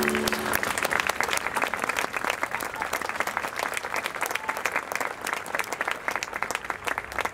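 Audience applauding, with dense clapping from many hands. The show music dies away just as the clapping starts.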